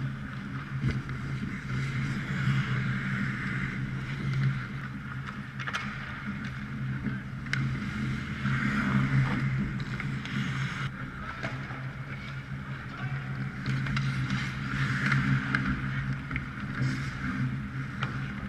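Ice hockey play on an indoor rink: skates scraping the ice and a few sharp stick-and-puck clacks over a steady low hum.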